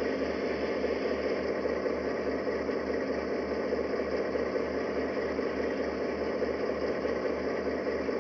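Diesel locomotive engine sound idling steadily with an even low throb, coming from the HO scale model diesel.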